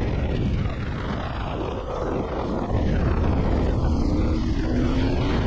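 Yamaha Ténéré parallel-twin engine breathing through a MIVV Dakar aftermarket exhaust, running on the move with wind noise on the microphone. It gets louder about halfway through as the engine pitch climbs.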